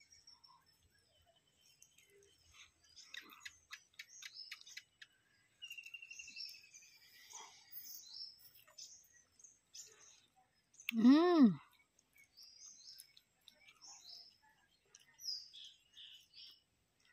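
Small birds chirping and tweeting with short high calls throughout, with a cluster of faint clicks a few seconds in. About eleven seconds in comes a single loud call, under a second long, that rises and falls in pitch.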